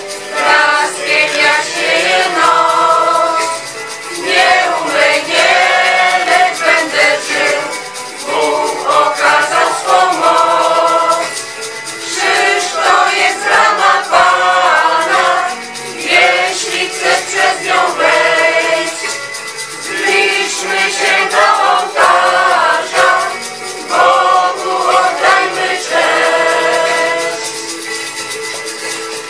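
Small mixed choir of men and women singing a song in Polish through microphones, in phrases a few seconds long with short breaths between them.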